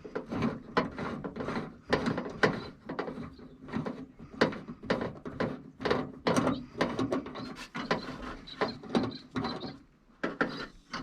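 Socket wrench on an extension working the 10 mm nuts of a car's outer door handle inside the door: a run of irregular metallic clicks and knocks, several a second, with a short lull near the end.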